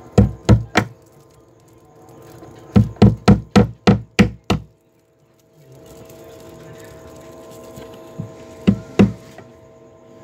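Hammer tapping on the wooden frame of a homemade incubator to fix a wire in place. The blows come in quick runs: three at the start, about seven in the middle, and two near the end.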